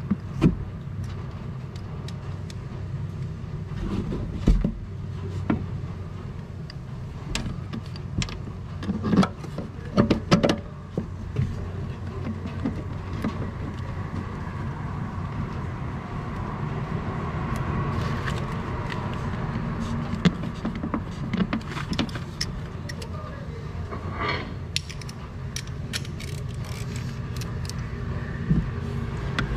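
Metal tools clinking and knocking against car suspension parts, in scattered short strikes and clusters, over a steady low hum.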